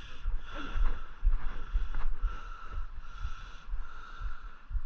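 Steady rush of creek water, with irregular low buffeting from wind or handling on the microphone.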